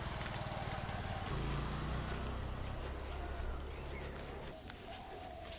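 Insects chirring in one steady high-pitched tone, over a low rumble.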